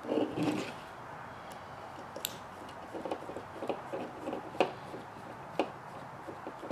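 Scattered light clicks and taps from handling a small plastic RC axle housing and a hex driver, with a soft rustle near the start.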